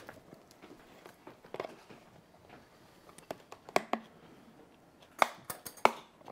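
Kitchen handling noises: scattered sharp clicks and knocks of things being picked up and set down on a counter, several in quick succession near the end.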